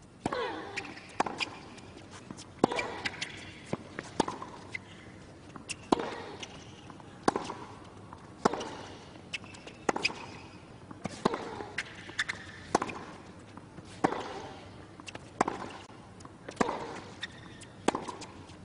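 A long tennis rally: the ball struck by rackets and bouncing on the court in a steady back-and-forth, a sharp hit about every second and a half.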